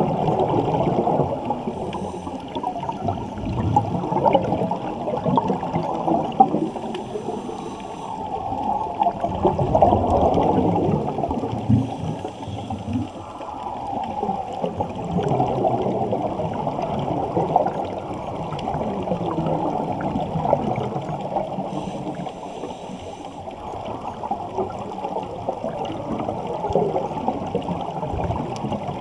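Muffled water swirling and gurgling, heard from underwater through a waterproof camera housing, with the sound rising and falling in waves.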